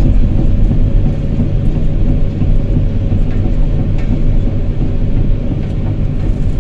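Diesel engine of a tracked XCMG crawler machine running steadily at low speed: a deep, even rumble, with a few faint clicks.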